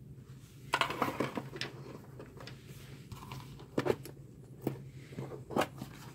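A clear plastic parts-organiser box being handled and opened: a scattering of short plastic clicks and knocks, with the snap latches coming undone.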